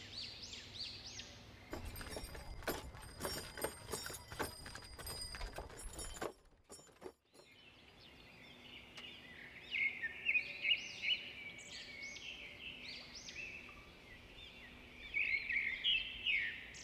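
Small birds chirping repeatedly as a rural background. For a few seconds near the start, irregular knocking and clattering takes over, then there is a brief near silence and the birds chirp again.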